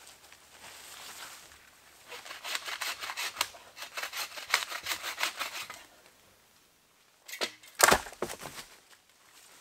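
Footsteps crunching and rustling through dry fallen leaves for a few seconds. After a short lull comes a sharp crack with a thump, the loudest sound, like dead wood snapping or knocking.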